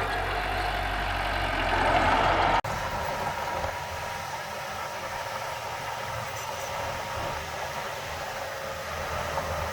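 Diesel engine of heavy earthmoving equipment running, louder for the first couple of seconds, then an abrupt break to a steadier, quieter run.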